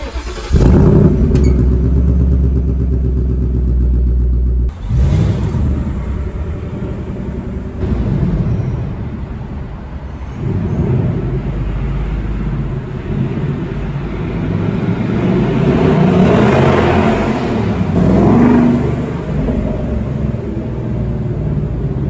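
Ford Mustang GT's 5.0-litre V8 through its quad-tip exhaust, loud and echoing in a concrete parking garage. It fires up about half a second in and runs with a deep, even beat. Later it revs and pulls away, swelling louder between about 15 and 19 seconds in.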